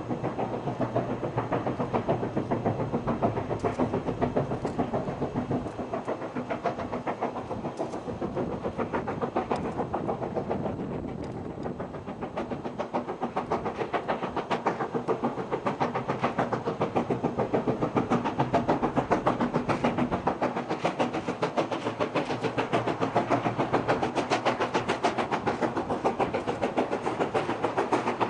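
SY class 2-8-2 steam locomotive working a passenger train, its exhaust beating in a rapid, even rhythm. The beats dip a little about a third of the way in, then come back louder and sharper as the engine draws nearer.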